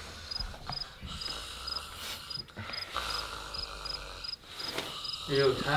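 Cricket chirping, a steady run of short high chirps about three times a second, the quiet-scene effect laid over room tone.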